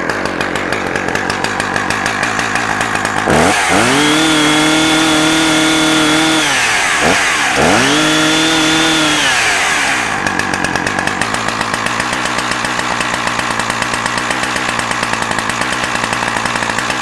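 Husqvarna 359 two-stroke chainsaw idling, then revved up to a high steady pitch twice, a few seconds each time, before dropping back to idle.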